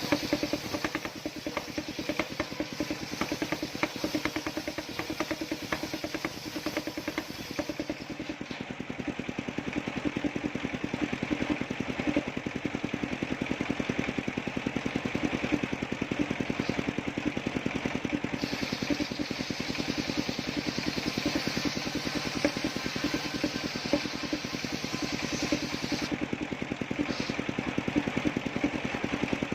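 Small combustion engine of a homemade circular-saw sawmill running steadily with a fast, even pulse while the saw works through a coconut trunk. A hissing layer over the engine drops away about eight seconds in, returns past halfway, and fades again near the end.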